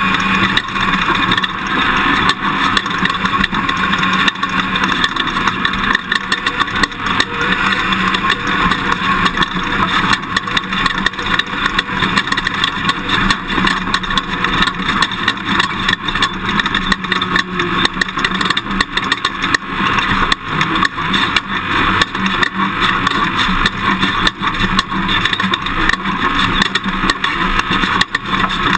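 Toyota Tundra pickup truck driving over rough dirt terrain: steady engine and tyre noise with a constant stream of small knocks and jolts from the bumpy ground.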